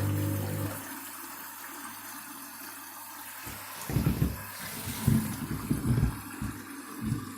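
Candy washing machine: a steady low hum cuts off under a second in, leaving water hissing in. From about three and a half seconds in, water sloshes heavily in the drum in a run of low surges as the drum turns.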